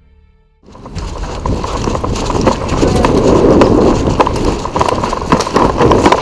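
Footsteps of a player running on the ground with gear knocking and rustling, close to a body-worn camera. It begins abruptly under a second in, with many short thuds and clatters over a steady rush of noise.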